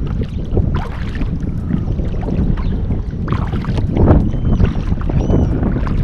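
Sea kayak paddle strokes splashing into the water every second or so, over a steady low rumble of wind on the microphone.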